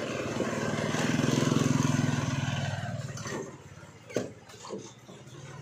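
A vehicle engine running with a steady low hum that swells louder about a second in and dies away by about three seconds, followed by a sharp click a little after four seconds.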